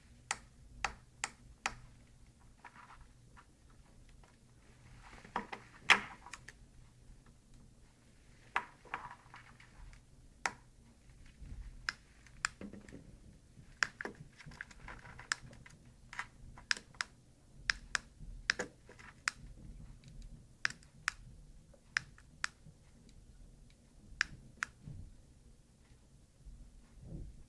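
Dozens of sharp, irregular plastic clicks from the button of a frog LED flashlight keychain being pressed again and again, with now and then a soft rustle of handling. No frog sound effect plays: the button is sticking.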